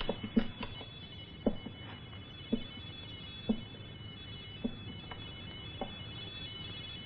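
Soundtrack sound effect: soft knocks, a few close together at first, then one roughly every second, over a faint steady high-pitched hum.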